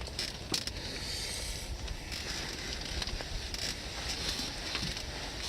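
Wind rumbling over the microphone, with a steady hiss and scattered light ticks and crackles.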